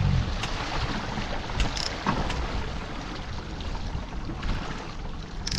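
Wind and water sloshing around a small fishing boat, with a few light clicks. A low engine hum cuts out right at the start.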